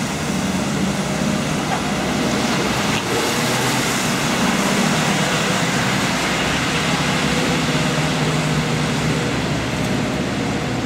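A New Routemaster hybrid double-decker bus passes close by and pulls away along a wet street. Its engine hum sits under a steady hiss of tyres and traffic on the rain-soaked road.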